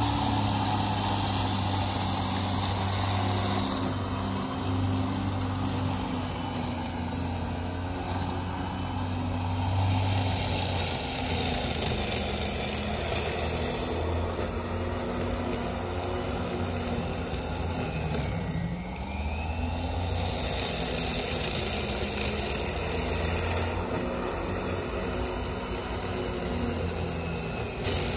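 Corded electric lawnmower running steadily while cutting tall, overgrown grass: a steady motor hum with a faint high whine above it.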